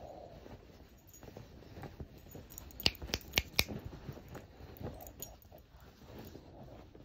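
A small dog digging and nosing at a duvet on a bed: bedding rustling, with a quick run of four sharp clicks a little before the middle.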